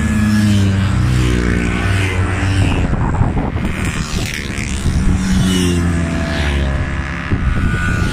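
Motor scooters riding past one after another, their small engines rising and then dropping in pitch as each goes by.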